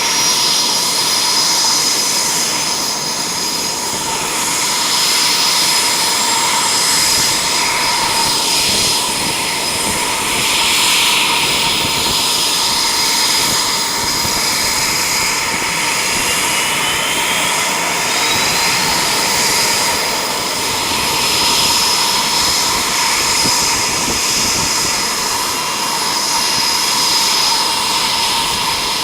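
Eurofighter Typhoon's twin EJ200 turbofan engines running steadily, a loud jet rush with a high, even whine.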